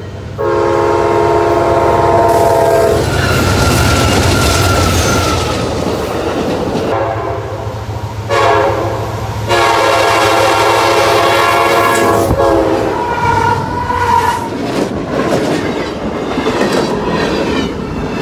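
CSX freight locomotive horns sounding multi-note chords: one long blast near the start, then a short and a long blast about halfway through. Between and after them comes the rumble and clickety-clack of freight cars rolling past at speed.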